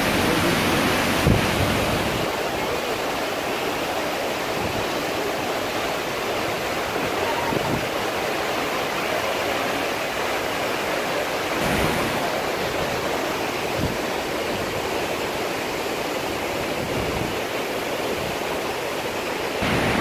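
Kapuzbaşı waterfall pouring down a tall cliff face: a steady, loud rush of falling water.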